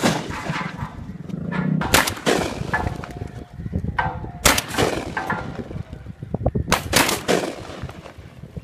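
Gunshots from a hunting gun, three sharp cracks about two and a half seconds apart, each ringing out briefly.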